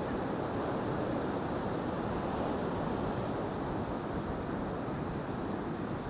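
Heavy storm surf breaking on a beach, a steady rush of waves mixed with strong wind on the microphone.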